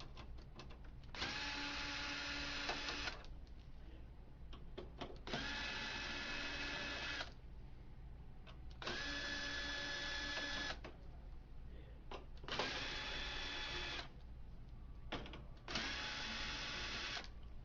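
Electric screwdriver whirring in five runs of about two seconds each, with small clicks in the gaps between them: backing out the five screws that hold the printer's high-voltage power supply.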